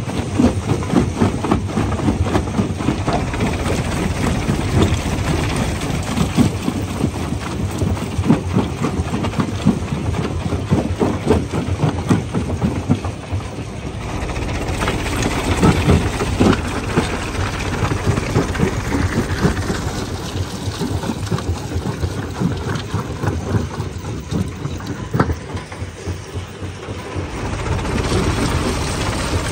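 A jaw crusher running and breaking rocks: a dense, continuous crackle of stone cracking and grinding over the machine's steady rumble. The sound eases briefly twice, about halfway through and again near the end.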